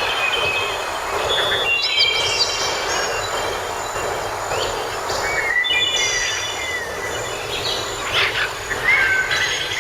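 Several woodland birds singing at once, with clear whistled phrases and gliding notes, over a steady background hiss.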